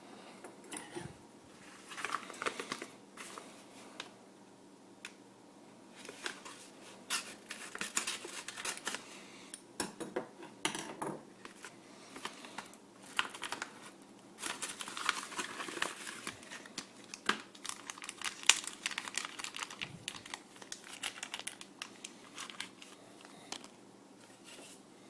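Packaging crinkling and tearing as a small mail-order parcel is unwrapped by hand: irregular bursts of crackles and clicks with short pauses between them.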